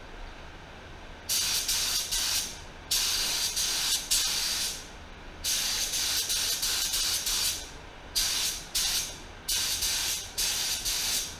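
Walcom Genesi Carbonio HVLP spray gun hissing in about seven separate bursts, one per trigger pull and pass, as it sprays epoxy primer sealer. Each burst stops sharply when the trigger is released.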